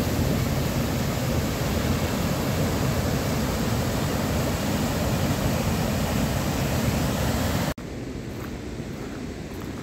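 Waterfall, a steady rush of falling water. Near the end it cuts suddenly to a quieter rush of the same kind.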